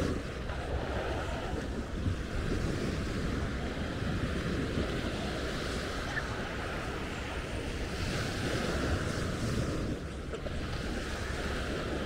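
Small waves washing onto a sandy beach, with wind buffeting the microphone in a steady low rumble; the wash swells once near the end.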